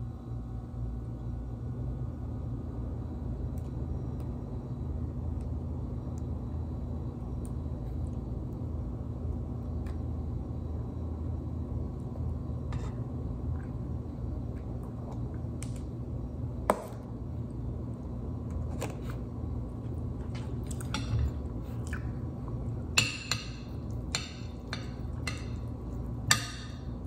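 Scattered light clicks and clinks over a steady low hum, the clinks coming more often and louder in the last several seconds.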